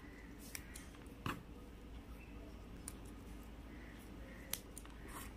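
Faint sharp clicks and snaps of fingers stripping banana flower florets, pulling out the hard pistil and the papery shell-like piece, over a low steady hum. The clearest click comes about a second in, with another later on.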